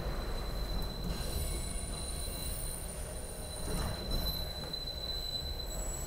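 SEPTA Broad Street Line subway train running along the track, heard from inside the car: a steady low rumble, with a thin high-pitched wheel squeal that starts about a second in and stops near the end.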